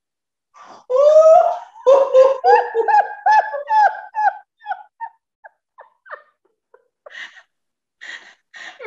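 Women doing an 'elephant laugh' through pinched noses: a rising whoop about a second in, then a run of short pitched 'ha-ha' laughs that thin out and stop, with a few more laughs near the end.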